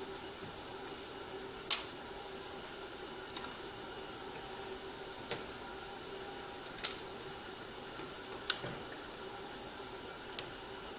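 Several light, sharp clicks, spread a second or two apart, as a small metal tool picks at a paper stencil and its thumbtacks on a wooden board. Under them runs a steady hiss with a faint hum.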